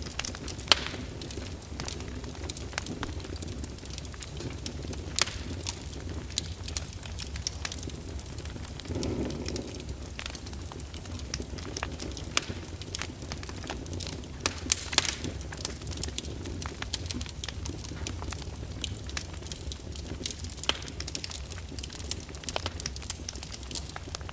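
Fireplace fire crackling, with frequent irregular sharp pops and a few louder snaps, over a steady low background rumble.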